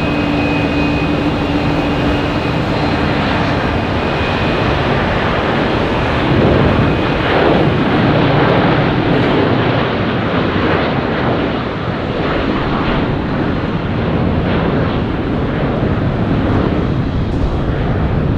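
Jet airliner engines at high power. A steady whine fades out within the first four seconds, then gives way to a rough, rumbling roar that is loudest from about six to nine seconds in and stays strong after.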